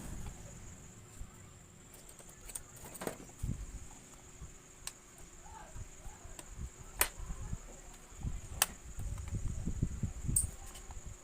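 Plastic case of an Asus X541S laptop being pried open by hand: about four sharp clicks a second or two apart as the clips snap loose, with low bumps and rubbing of handling.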